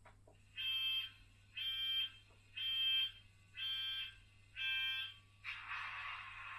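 Model train sound-decoder effect: five evenly spaced electronic warning beeps about a second apart. A steady hiss starts near the end.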